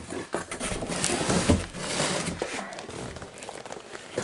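Packaging being handled and unwrapped: uneven rustling and crinkling of bubble wrap and cardboard, with small clicks and knocks.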